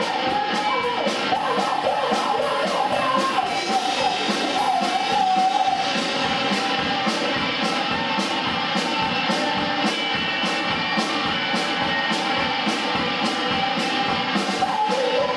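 Live punk rock band playing: two electric guitars and a drum kit keeping a fast steady beat, with a woman singing into the microphone over them.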